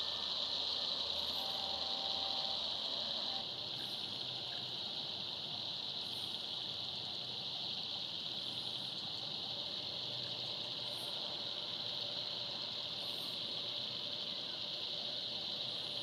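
Steady, high-pitched chorus of night insects, with a faint higher chirp repeating every second or two.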